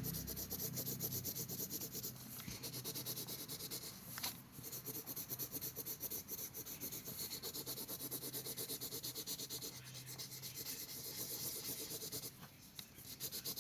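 Colored pencil shading on paper: quick back-and-forth scratchy strokes, about five a second, with short pauses about four seconds in and again near the end.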